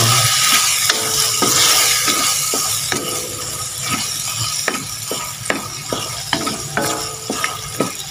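Wooden spatula stir-frying pieces of pig stomach in a dark soy sauce in a metal wok: a steady sizzle with the spatula knocking and scraping against the wok about twice a second. The sizzle eases off gradually.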